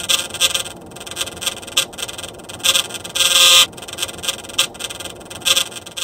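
Refrigerator fan blade rubbing against an obstruction: a whirring buzz broken by irregular scraping rattles. The sound is the sign of something catching on the fan blade.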